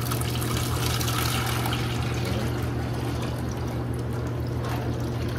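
Used deep-fryer oil pouring in a steady stream from the fryer's fully opened drain valve into a plastic bucket, as the old oil is drained for an oil change. A steady low hum runs under it.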